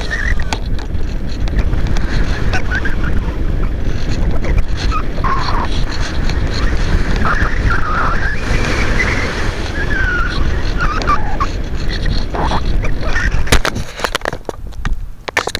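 Wind rushing over the microphone of a camera riding on a ParkZone Radian RC glider in flight. Near the end the rush drops off and a few sharp knocks are heard as the plane comes down to the pavement.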